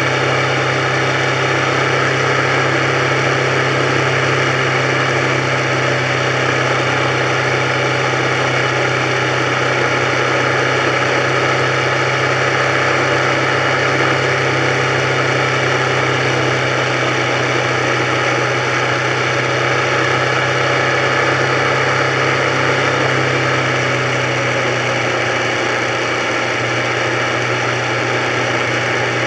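Motorcycle engine running at a steady cruise with constant wind and road noise, heard from a camera mounted on the bike's handlebars. The engine note holds steady, dipping slightly about three-quarters of the way through.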